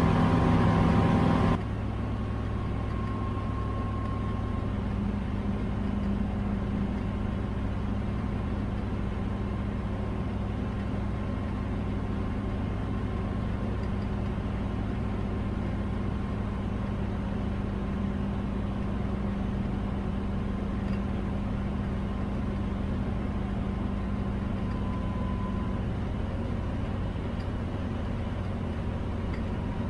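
Rotax 914 engine and propeller of a Bristell light aircraft droning steadily in the cockpit on final approach. A louder hiss cuts off about a second and a half in, leaving an even low hum.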